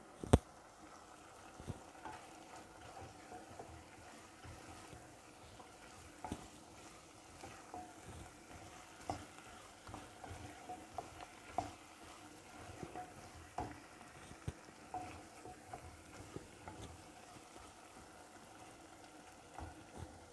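Wooden spoon stirring chicken and carrots in a nonstick pot, knocking against the pan at irregular intervals over a faint sizzle of frying. One sharp knock just after the start is the loudest sound.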